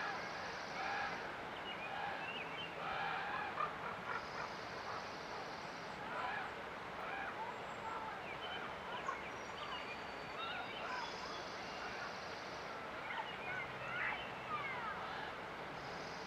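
Several songbirds chirping over the steady rush of a river. There are many short, quick chirps and sweeps, and a high buzzy trill about one and a half seconds long that returns every five seconds or so.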